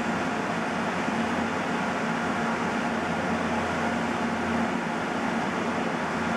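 Epilog laser cutter running mid-cut: a steady mechanical whir with a low hum.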